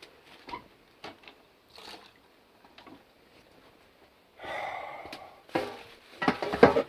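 Scattered light knocks and handling noises, a brief hiss about two-thirds of the way through, then a louder clatter of knocks near the end. No engine is running; it has cut out, probably for lack of fuel.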